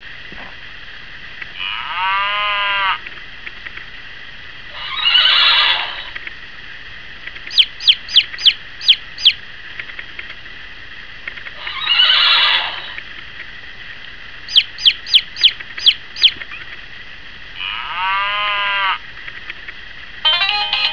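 Farm-animal sounds played back in turn, among them two runs of six quick, high, falling chick cheeps, each run lasting about two seconds. Between them come longer calls: a pitched call near the start and again near the end, and two rougher, noisy calls.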